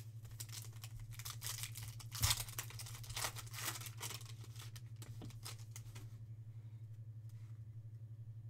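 Foil wrapper of a baseball card pack crinkling and being torn open by hand, with a sharper tear about two seconds in. The rustling stops about six seconds in, leaving a steady low electrical hum.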